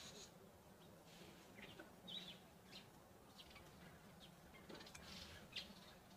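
Faint, scattered bird chirps and calls over quiet outdoor background.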